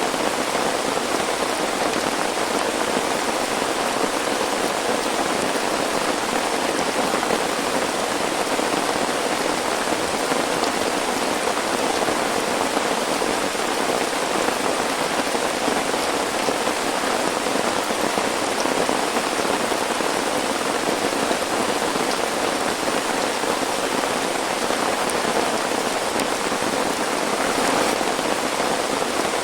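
Heavy rain pouring steadily, an even, unbroken wash of noise.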